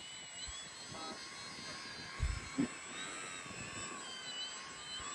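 Motor and propeller of an RC slow-flyer model plane whining in flight, its pitch wavering up and down as it flies. Wind buffets the microphone about two seconds in.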